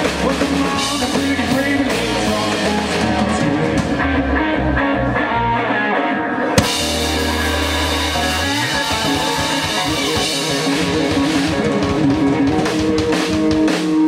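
Live rock band playing: drum kit and electric guitar over a moving bass line, with a single sharp crack about six and a half seconds in.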